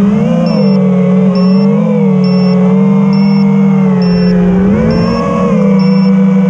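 Racing quadcopter's brushless motors whining, the pitch rising and falling together with the throttle as it flies. It dips about four and a half seconds in, climbs again, then holds steady near the end.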